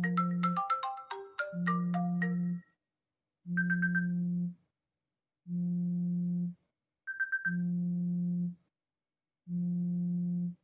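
An iPhone ringtone playing. A fast run of short high notes over a low tone ends about two and a half seconds in. After that the low tone pulses on and off about every two seconds, with a short rapid high trill about three and a half and seven seconds in.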